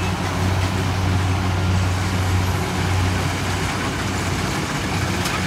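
Kubota DC70 combine harvester's diesel engine running steadily: an even, low drone over the hiss of the working machine.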